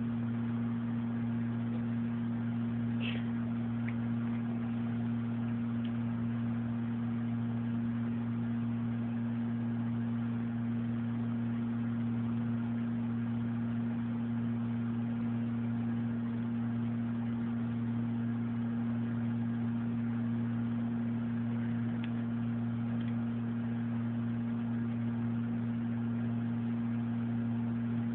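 A steady low hum: one strong even tone over a lower droning band, unchanging in level. A faint short high squeak comes about three seconds in.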